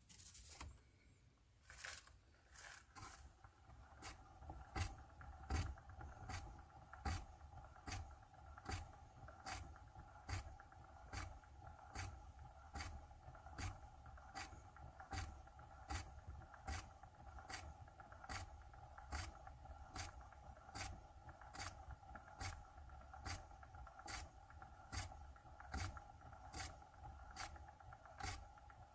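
Slippers scraping along the floor in steady shuffling steps, about one and a half a second, over a steady hum.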